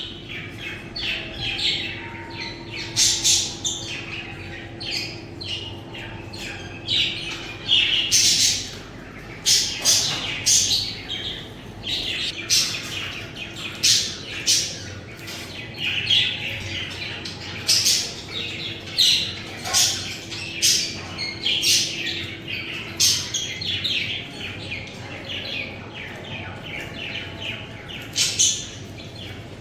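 Budgerigars chirping continuously: rapid short high chirps with louder calls every second or so, over a faint steady hum.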